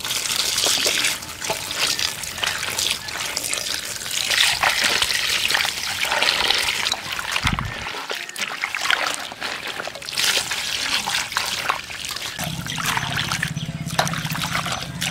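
Water pouring, trickling and splashing over bottle gourd leaves in a steel bowl while they are rubbed and swished by hand to wash them. A low steady hum joins in near the end.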